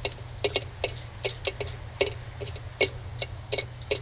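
Sharp, somewhat uneven clicking, about two to three clicks a second, over a steady low hum.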